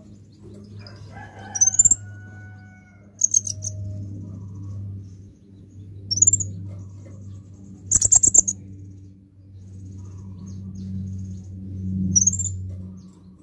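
A male kolibri ninja sunbird giving sharp, very high chirps in short clusters a few seconds apart, some sweeping upward. The loudest cluster comes about eight seconds in.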